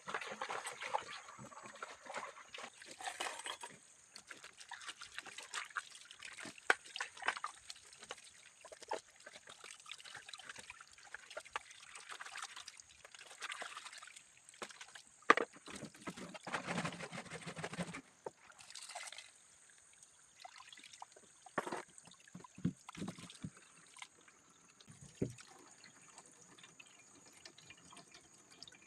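Ginger roots being washed by hand in water: irregular splashing and trickling, with a sharper splash about halfway through.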